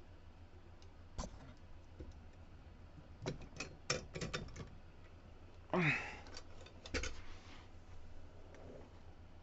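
Small hard tools and lock parts being handled and set down: scattered clicks and clacks, a quick run of them from about three to five seconds in, a brief rising scrape near six seconds and a sharp knock about seven seconds in.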